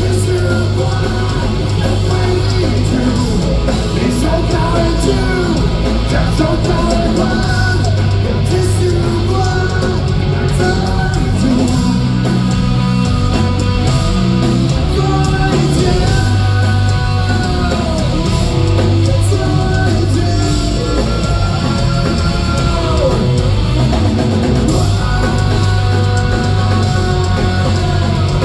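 Rock song with distorted electric guitars, a steady bass and a male voice singing.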